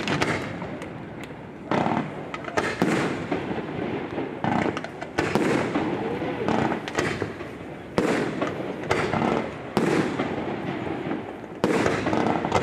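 Fireworks display: a string of sharp bangs from shells being launched and bursting, one every second or two, each dying away, with crackling between them.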